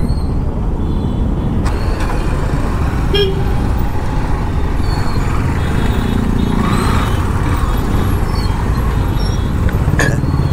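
Motorcycle riding in slow, jammed city traffic: a steady engine and road rumble, with a few short car horn toots from the surrounding vehicles.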